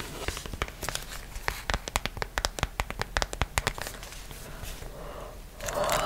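Long fingernails tapping on a leather zippered pouch held close to the microphone, a quick irregular run of sharp taps, about three or four a second, that thins out near the end.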